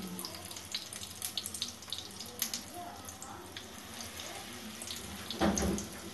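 Besan-battered boiled egg pakoras deep-frying in hot oil on a low flame: a steady sizzle full of small crackles and pops, with a brief louder burst near the end.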